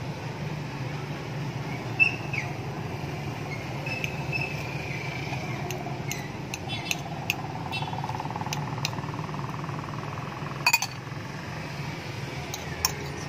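Metal fork and spoon clinking and scraping against a ceramic bowl and plate: a scattering of sharp clicks, the loudest about two seconds in and again near eleven seconds, over a steady low hum.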